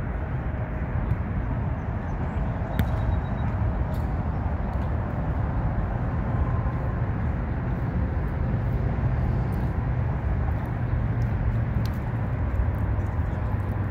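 Steady low rumble of road traffic on the elevated roadway overhead, with a few faint scattered taps.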